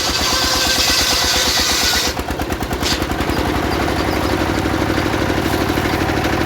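Engine of a mobile circular saw running steadily with an even pulse while the blade cuts sengon wood; the high hiss of the cut stops about two seconds in, leaving the engine running on its own.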